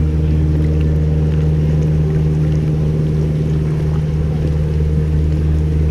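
Steady low motor drone of a Tom Sawyer Island raft's engine close by, under faint splashes of canoe paddles dipping in the water.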